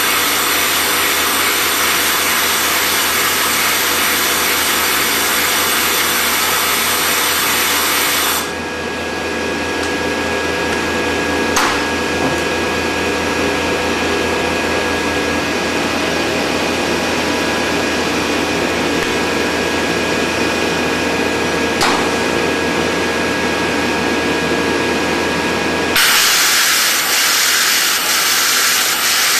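Laser welding machine at work: a loud, steady hiss while welding. About eight seconds in it gives way to a quieter machine hum with steady whine tones and two sharp clicks. Near the end the loud hiss returns with a fine crackle as the weld throws sparks.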